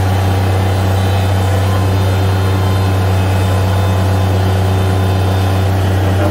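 Bobcat MT85 mini track loader's diesel engine running steadily with a strong low hum as the machine moves forward on its tracks with the bucket raised.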